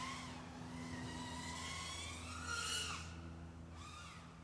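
3.5-inch TANQ S micro FPV quad's 1404 4000 KV brushless motors and props whining, the pitch rising and falling with throttle. The pitch rises highest about two and a half seconds in.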